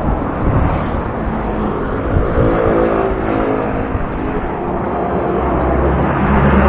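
Road traffic: motor vehicles passing close by, one swelling and fading about two to four seconds in, then a vehicle engine running steadily close by from about five seconds in.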